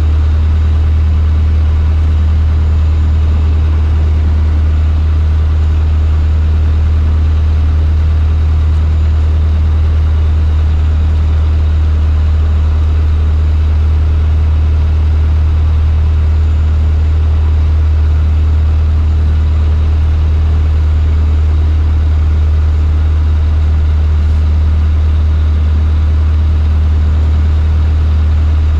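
Cessna 152's four-cylinder Lycoming O-235 engine and propeller heard from inside the cabin: a loud, steady deep drone with no change in pitch.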